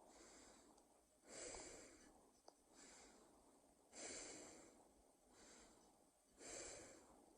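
A person breathing slowly and noisily, close to the microphone, done deliberately loud as a mock sleep-aid sound. There are three louder breaths with sudden starts, about two and a half seconds apart, with a softer breath between each.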